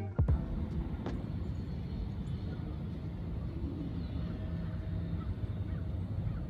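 Steady low rumble of vehicle traffic, with no single event standing out.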